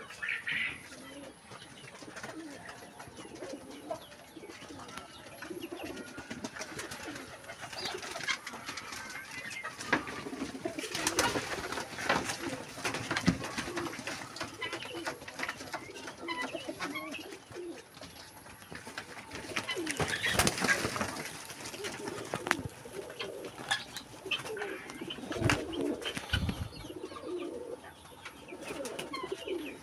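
Fancy pigeons cooing over and over, low warbling calls overlapping each other, with bursts of rustling about a third and two thirds of the way through and a couple of low thumps near the end.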